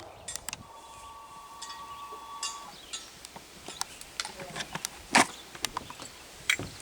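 Faint scattered clicks and rattles of the Hi-Point .40 carbine being handled after firing, with two sharper clicks near the end. A faint steady two-note ringing tone lasts about two seconds early on.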